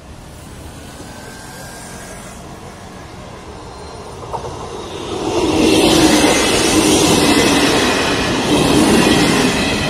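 Italian regional electric train passing close by, its wheels running on the rails. It is faint at first, then loud and steady from about five seconds in as the carriages go past.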